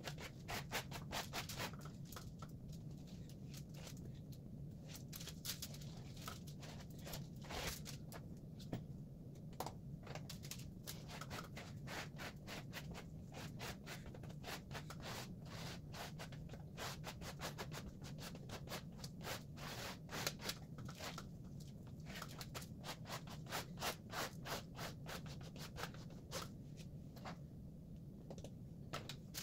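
A plastic gift card scraping and rubbing back and forth over a glue-coated jigsaw puzzle, spreading Mod Podge into the gaps between the pieces in quick, repeated strokes.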